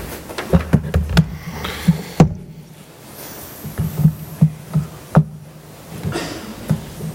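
Irregular knocks and thumps of a laptop and its cable being handled on a wooden lectern, picked up by the lectern microphone.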